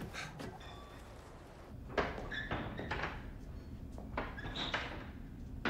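A handful of separate soft thunks and creaks, like a door being handled, over a low steady rumble.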